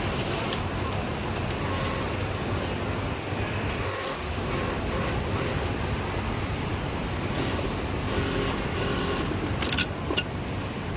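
Steady din of industrial sewing machines running, with a low hum throughout and two sharp clicks near the end.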